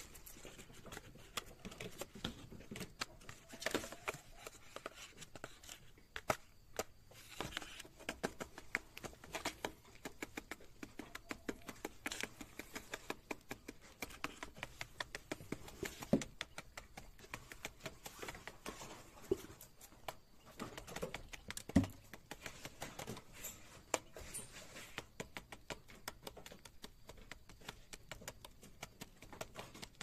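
Coturnix quail pecking quickly at grain weevils and grain in a plastic feed tray: a fast, irregular run of beak taps on the plastic, with one louder knock about two-thirds of the way through.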